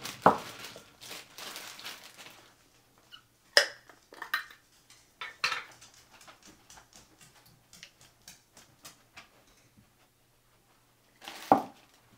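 Kitchen handling noises as cheese is got out of a plastic bag: a sharp knock and about two seconds of plastic rustling, then scattered clinks and knocks of utensils and dishes with faint ticking between them, and a louder knock near the end.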